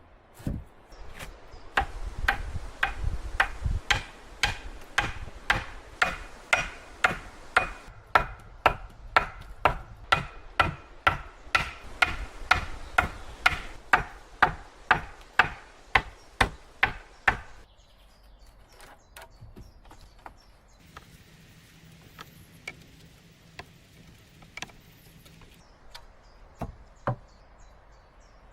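Wood being chopped with a steady run of blows, about two a second, each with a short ringing crack; the chopping stops about two-thirds of the way through, leaving a quiet outdoor background with a few scattered knocks.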